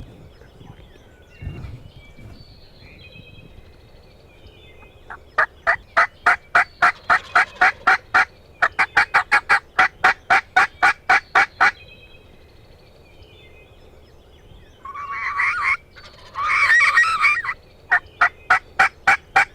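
Wild turkeys calling: long runs of rapid, evenly spaced sharp notes, about four a second, with two rougher, raspier bursts partway through.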